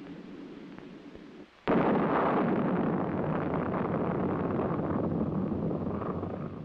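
Sergeant missile's solid-fuel rocket motor igniting at launch: a sudden loud roar about a second and a half in that carries on and slowly fades. Before it there is only a faint film hiss.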